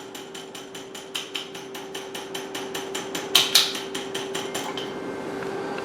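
Shockwave therapy handpiece firing its pulses at a set frequency of 5: a steady train of sharp ticks, about five a second, with two louder strikes a little past the middle, stopping shortly before the end over the machine's steady hum.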